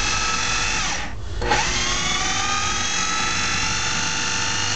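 KitchenAid food processor motor and blade running while chopping cooked brisket, with a steady whine that slowly sags in pitch under the load of the meat. It cuts out briefly about a second in, then starts again, as it is pulsed.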